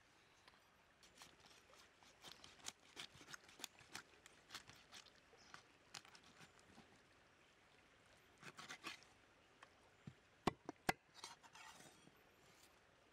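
Large knife cutting and scraping through crocodile hide and flesh on a wooden chopping block: a run of faint crackling cuts and scrapes, with two sharp knocks of the blade on the block near the end, the loudest sounds.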